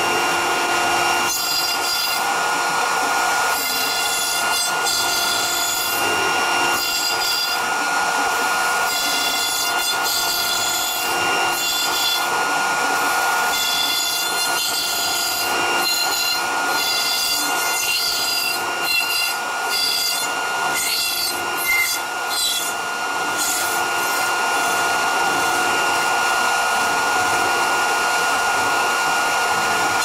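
CNC router spindle whining steadily while an extra-long R4 ball-nose cutter mills Styrodur (extruded polystyrene foam), with a rough cutting hiss that swells and eases over and over as the tool moves back and forth through the foam.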